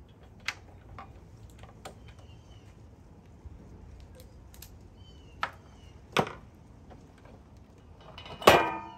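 Hand screwdriver backing screws out of a plastic air-conditioner interior unit: scattered small clicks and taps. Near the end a louder clatter with a brief ringing as the cover is lifted off its metal mounting plate.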